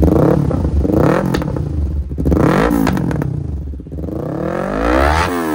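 Yamaha R3's parallel-twin engine revved through a hand-held stainless-steel Akrapovič slip-on muffler: three short throttle blips, then a longer rise and fall in revs near the end. Sharp pops of exhaust backfire come in as the revs drop.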